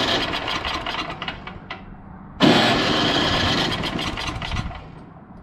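The plug-in electric starter on an Ariens snowblower's Tecumseh engine cranking the choked and primed engine in two bursts, the first ending about two seconds in and the second starting about half a second later and fading out near the end, without the engine catching. The freshly reinstalled starter engages and turns the engine over.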